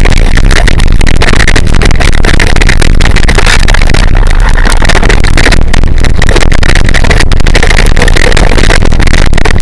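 Bike ride over a rough dirt trail heard through a bike-mounted camera: a loud, distorted rush of wind and tyre noise with constant rattling and knocks.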